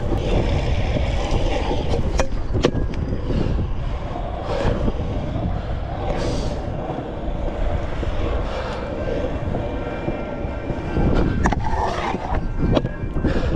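Kick scooter wheels rolling over concrete, a steady rumble broken by a few sharp clacks.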